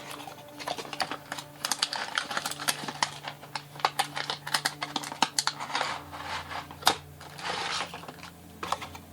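Unpacking a small box: irregular clicks, taps and rustles of cardboard and plastic packaging being handled and its contents taken out.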